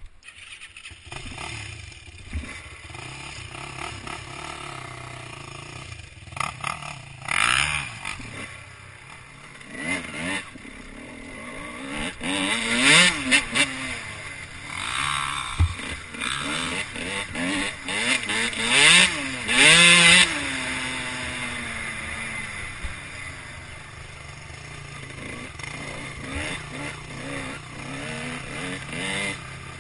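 Off-road motorcycle engine revving up and down while riding a rough dirt track, its pitch rising and falling repeatedly, with the loudest bursts of throttle around the middle.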